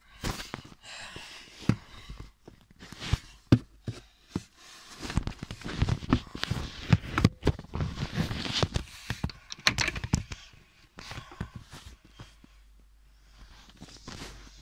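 Handling noise from a phone held up close: irregular rubbing, knocks and clicks as fingers brush over it, dying down for the last few seconds.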